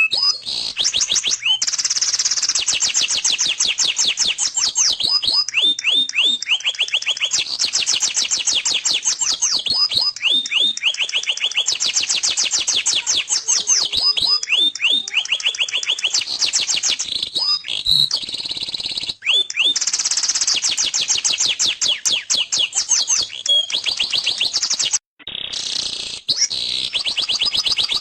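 Domestic canary singing a continuous song of fast rolling trills, each a rapid run of repeated notes, broken up by short swooping notes. The song cuts out briefly near the end.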